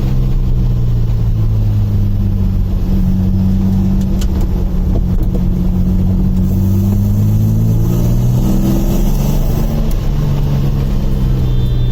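Jannarelly Design-1's Nissan V6 running at moderate revs under way, heard on board, its low hum holding steady and then rising gently and easing back a little past the middle.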